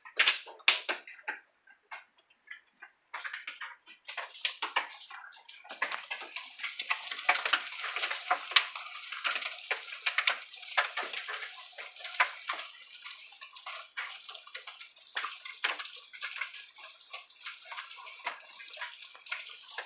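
Hailstorm: hailstones and rain pelting a wooden deck, a patter of many small ticks that starts sparse and thickens into a dense, continuous clatter about five seconds in.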